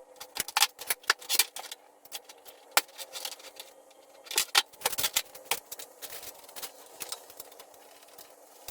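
Hand tools and metal parts clicking and clinking while a mini bike is taken apart, in irregular clusters of sharp clicks over a faint steady hum.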